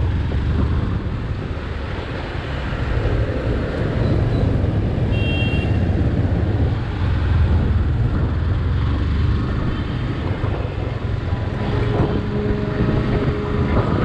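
Motorcycle riding noise: wind buffeting the microphone over a steady low rumble of engine and road. A short high beep comes about five seconds in.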